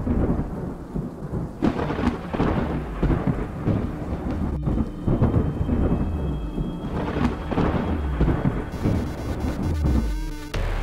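Thunderstorm sound effect: steady heavy rain with deep rolls of thunder swelling and fading several times.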